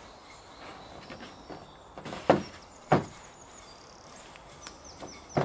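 Wooden rolling pin rolling out pizza dough on a floured wooden pizza peel: a soft rolling rustle with two sharp wooden knocks, about two and three seconds in.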